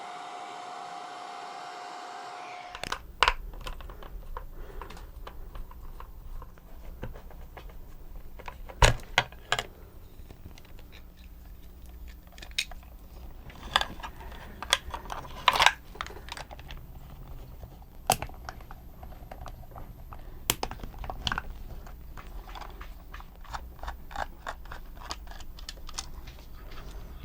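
Hair dryer running with a steady hum, switched off about three seconds in; then scattered clicks and light knocks of small parts being handled.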